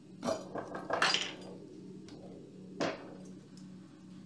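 A few light clinks and knocks of a utensil and salt jar against a stainless steel mixing bowl and worktop while pork pieces are seasoned: one near the start, a cluster about a second in, and one more near three seconds.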